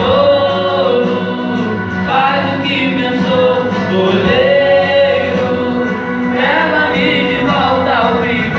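A small church vocal group singing a Portuguese gospel song together, with long sung notes that glide and change pitch.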